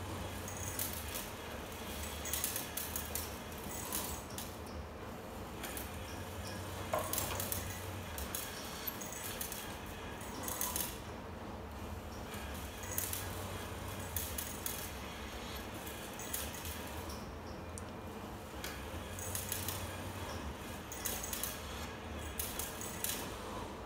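Robotic assembly line at work: a low machine hum that comes and goes, with scattered bursts of light metallic clicking and clinking.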